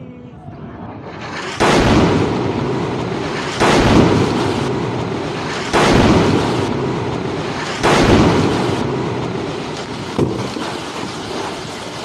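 Air-strike explosions: four heavy blasts about two seconds apart, each followed by a long rumbling roll-off, then a smaller fifth blast a couple of seconds later.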